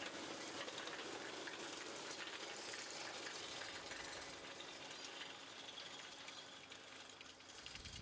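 Twin-rotor rotary rake sweeping cut grass into windrows: a steady rustling hiss of the spinning tines through the grass, with a faint tractor engine hum under it. It grows a little quieter near the end as the rake moves away.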